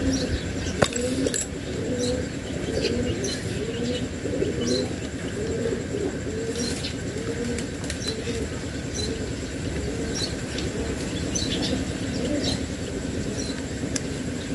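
Pigeons cooing over and over, with small birds chirping now and then and one sharp click about a second in.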